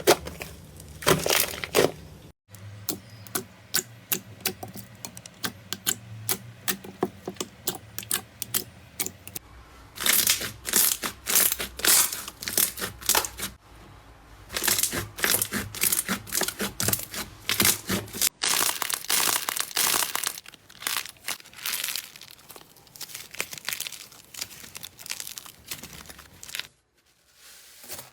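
Slime being squeezed, pressed and poked by hand, giving dense runs of sticky crackles, pops and squelches. The sound changes abruptly several times as one slime gives way to another.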